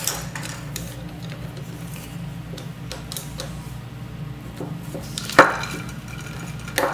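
Screwdriver and Allen key scraping and clinking inside a pneumatic control valve manifold as the piston bolt is worked loose; about five and a half seconds in, one sharp loud pop as the bolt breaks free, with a smaller click near the end.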